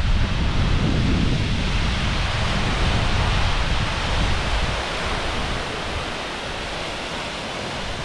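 A large waterfall, about 120 ft high, rushing steadily, with wind buffeting the microphone as a low rumble that eases after about five seconds.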